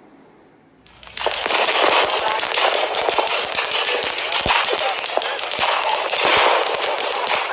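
A string of firecrackers going off in a dense, rapid crackle of many sharp bangs that starts suddenly about a second in and keeps going.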